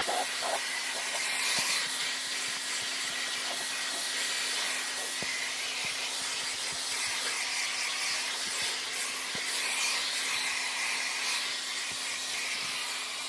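Shark AZ910UKT DuoClean upright vacuum cleaner running steadily with its upholstery tool, a constant hum under the rushing air, with scattered small ticks as bits are sucked up.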